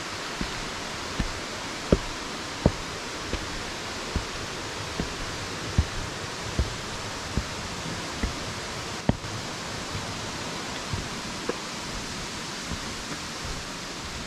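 Footsteps on wooden log steps and a forest path, a soft thud about every three-quarters of a second, over a steady rushing of flowing water.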